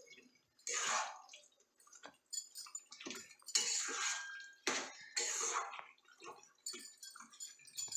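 A steel spoon stirring chicken pieces through thick, wet masala in a steel pot: a series of short, irregular wet scraping strokes with brief pauses between them.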